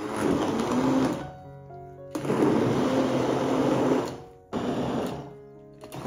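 An electric kitchen appliance motor runs in three bursts of one to two seconds each, with short pauses between them. Background music plays underneath.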